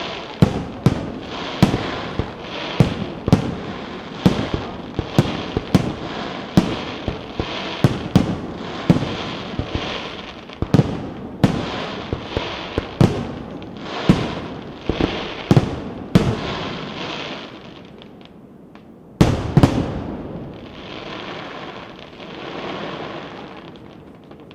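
Aerial fireworks display: a rapid series of sharp bangs, about two a second, with crackling between them, thinning out after about 17 seconds. One loud bang comes near the three-quarter mark, followed by a spell of crackling.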